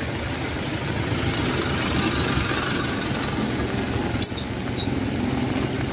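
Jeepney's diesel engine idling close by, a steady low rumble under the hiss of heavy rain, with two short sharp clicks about four seconds in.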